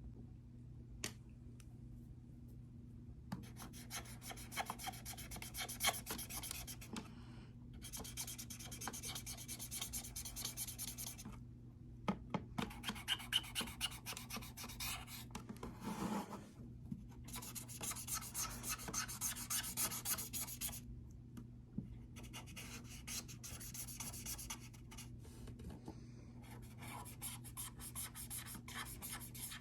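Rapid hand rubbing or scraping strokes on a hard surface, in six spells of about three to four seconds each with short pauses between them, over a steady low hum.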